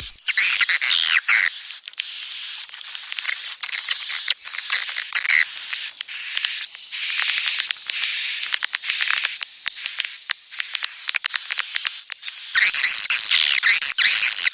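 Swiftlets calling: a string of short, high, buzzy chirps, each about half a second, mixed with rapid clicking. The calls grow louder and busier near the end. This is the swiftlet breeding call played in swiftlet houses to lure the birds in.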